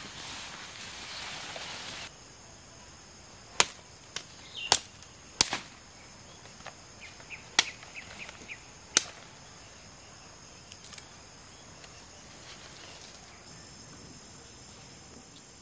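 Foliage rustling as someone pushes through undergrowth, then a blade chopping at a standing sapling: about six sharp strikes over some five seconds, with a couple of fainter knocks afterwards. Insects shrill steadily in the background.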